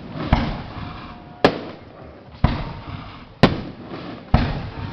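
Aerial firework display of 3- to 6-inch mortar shells going off: five sharp bangs about a second apart, each trailing away in a rumbling echo and crackle.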